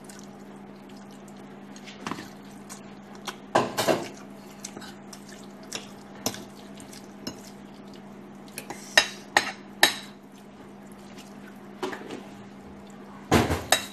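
Forks and spoons clinking and scraping against plates of spaghetti: scattered sharp clinks, a cluster of several around the middle and a louder one near the end, over a steady low hum.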